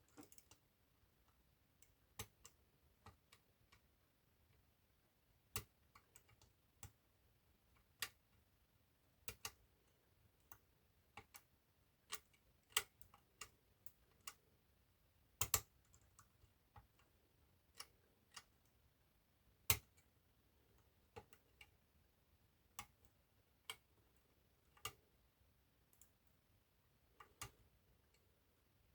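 Small sharp metallic clicks, irregular and roughly one a second with quiet between, from picking tools lifting the levers inside an eight-lever lever lock.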